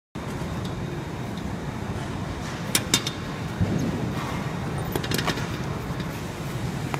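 Steady hum of bakery machinery, with a few sharp knocks and clanks as bread dough is cut with a scraper and weighed on a metal scale pan, two close together near the middle and two more about two seconds later.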